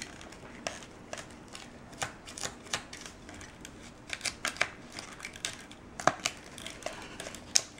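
A small plastic spoon stirring candy batter in a plastic kit tray: irregular light clicks and taps of plastic on plastic, a few a second.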